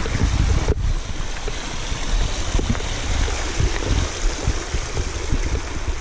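Mountain bike ridden over bare rock, wind buffeting the handheld action camera's microphone: a steady rushing noise with a deep, fluttering rumble.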